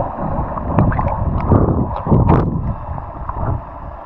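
Muffled underwater water noise from a swimmer moving in the sea: a low churning rumble with a few short bubbling pops in the first half, easing off near the end.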